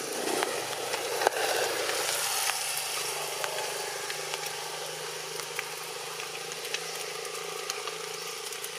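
A motor vehicle's engine idling steadily under general outdoor noise, with a few faint clicks scattered through it.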